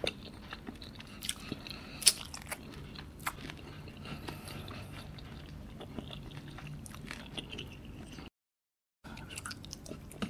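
Close-up chewing and mouth sounds of someone eating curried chicken feet by hand, with scattered sharp clicks and smacks. The sound drops out completely for under a second about eight seconds in.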